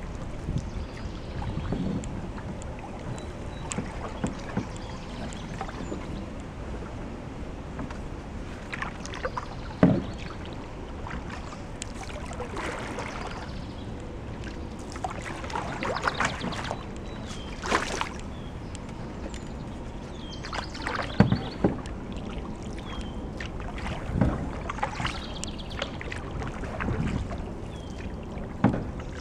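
Canoe paddle strokes in calm floodwater: irregular dips, swishes and small splashes and drips, a few louder than the rest, over a steady low background noise.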